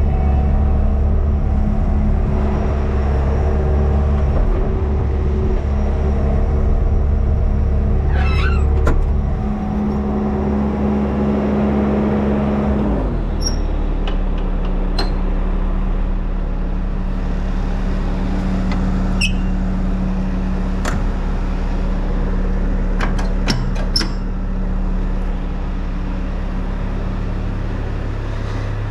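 Bobcat skid steer's diesel engine running steadily, heard from the operator's cab. About halfway through, its note drops to a lower, slightly quieter speed. A short squeak and a few sharp clicks from the machine come over the engine.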